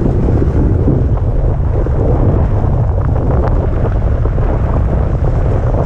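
Heavy wind rumble on the microphone of a moving electric moped ridden over a rough mud and gravel byway, with a few sharp knocks a little past three seconds in.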